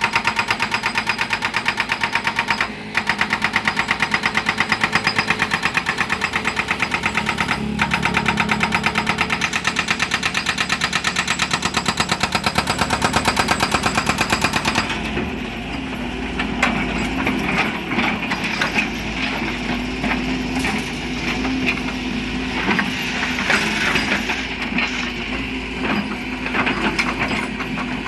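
Excavator's hydraulic breaker hammer pounding rock in a rapid, even train of blows, with two short breaks. About halfway through the hammering stops, and the excavator's engine runs on under irregular knocks and scrapes of stone.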